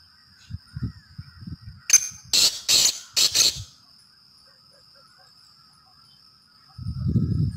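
Caged francolin (teetar) giving a loud, harsh call of about four notes in quick succession, around two seconds in. A low rumble comes in near the end, over a steady faint high tone.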